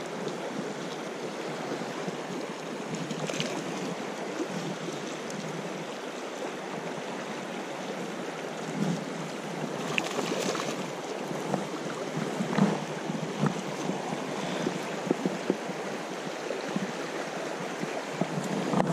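Fast-flowing river water rushing steadily, with short splashes from a hooked grayling thrashing at the surface in the second half.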